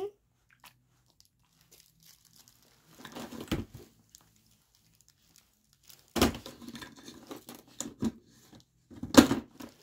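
Rustling and crinkling as squishy toys are rummaged through and handled, in several short bursts with quiet stretches between.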